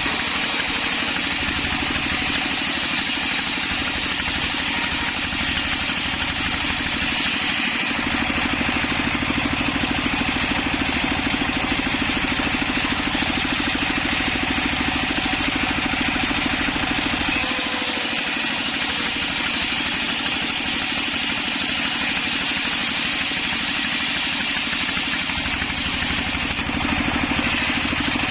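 Homemade circular sawmill rig running steadily with a constant engine-like drone while sawing sengon wood. Its tone changes a few times: about a third of the way in, again past halfway, and near the end.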